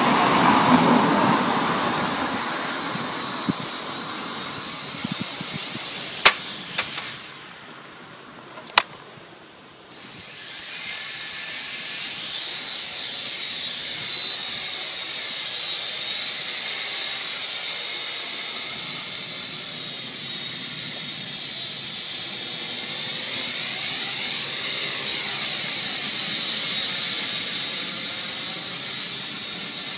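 Blade mQx micro quadcopter's motors and propellers whining steadily. About seven seconds in the whine drops away, with a sharp click just before and another during the lull, and a little after ten seconds the motors spin back up and the whine returns.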